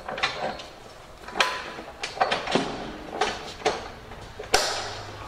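A series of sharp metal clanks and knocks, about seven in five seconds, from the rigging hardware of a loudspeaker dolly being handled. The last one, near the end, is the loudest.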